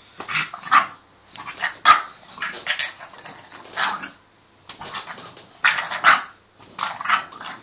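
French bulldog puppy barking in play: a quick, irregular string of short, sharp barks, with a brief pause about halfway through.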